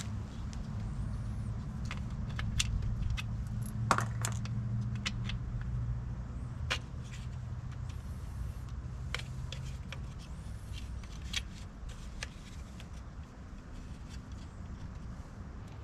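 Scattered light clicks and clinks of hand tools and small parts being handled during wiring work, over a low steady hum that fades after about ten seconds.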